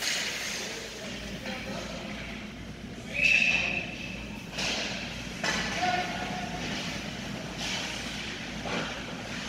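Ice hockey game sounds in an indoor rink: a steady noisy rumble with voices, several sharp knocks of sticks and puck, and a short high-pitched tone about three seconds in.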